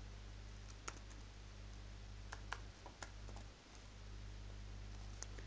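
A few scattered keystrokes on a computer keyboard, faint, over a steady low hum.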